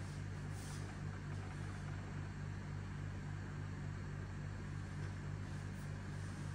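A steady low hum, with faint brief rustles about half a second in and again near the end.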